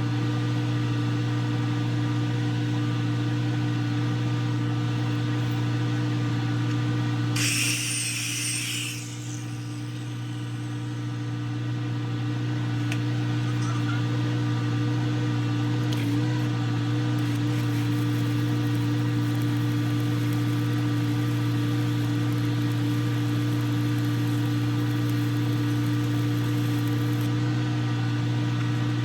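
Welding equipment running with a steady mechanical hum, with a short burst of hiss about seven seconds in.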